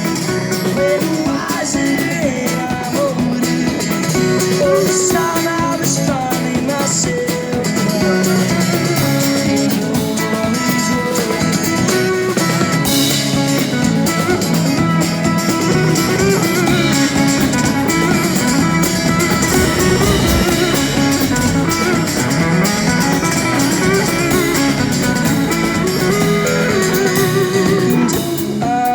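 Background music: a song with guitar, drums and a singing voice.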